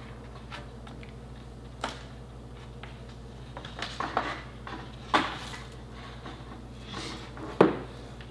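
Handling noise of a keyboard's USB cable being unwound and readied to plug in: a few scattered clicks and rustles, the sharpest knock about seven and a half seconds in.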